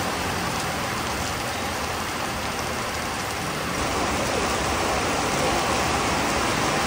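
Rain and road traffic on a wet street, a steady hiss that grows a little louder about four seconds in.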